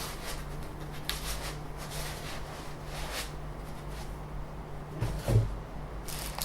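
Packaging and printer parts being handled during unboxing: faint rustles and scrapes, with one louder dull thump about five seconds in.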